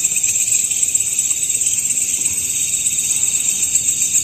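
A dense chorus of night insects calling steadily, a shrill high-pitched trilling in several layered tones.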